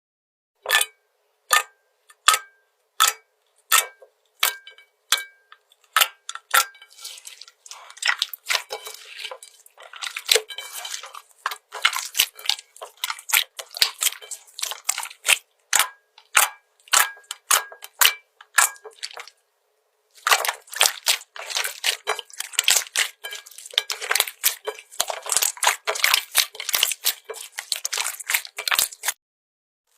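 Slime being worked by hand, giving sharp clicks and pops. They come about one every two-thirds of a second at first, then crowd into thick crackling, pause briefly about two-thirds of the way through, and resume as dense crackling.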